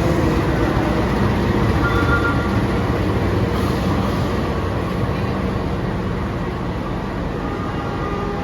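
Wijayakusuma passenger train running on the rails: a steady rumble of wheels on track with faint steady tones in it, slowly getting quieter toward the end.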